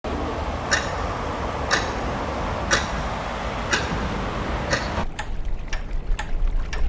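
A clock ticking once a second over a steady hum of street traffic. About five seconds in the background drops and the ticks come quicker, about two a second.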